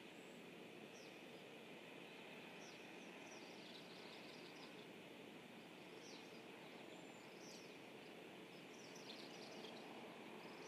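Faint steady hiss of outdoor ambience, with scattered short, high, falling bird chirps, singly and in little bunches.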